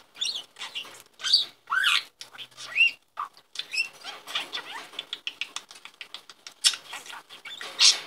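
Budgerigar chattering: a fast, irregular string of short chirps, squeaks and clicks, some sliding up in pitch. It is the warble a budgie makes when it is fixated on a toy.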